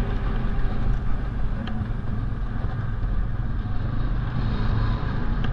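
Polaris Sportsman ATV engine running steadily as the quad is ridden along a dirt trail, with a couple of faint clicks.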